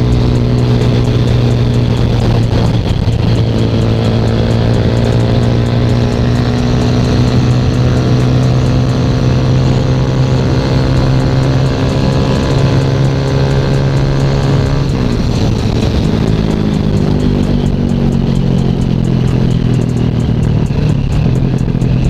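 Sigma 250 sport motorcycle's engine running under way at cruising speed. The note rises slowly, then drops in pitch about fifteen seconds in and holds steady.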